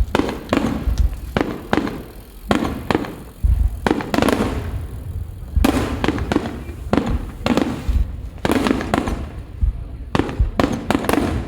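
Aerial firework shells of a large starmine bursting in rapid, irregular succession: deep booms and sharp cracks, often several per second, overlapping each other.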